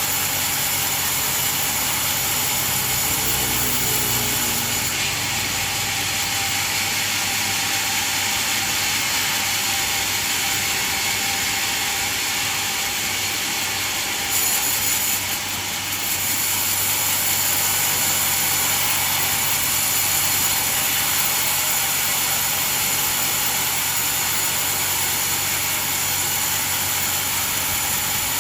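Band sawmill running steadily as its blade saws through a coconut trunk: a continuous, even mechanical hiss with a steady hum, changing briefly about halfway through.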